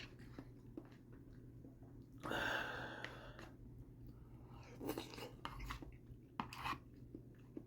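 A person chewing a mouthful of chicken Alfredo pasta close to the microphone, with soft wet mouth noises. About two seconds in comes a louder noisy sound lasting about a second, and two shorter ones follow later.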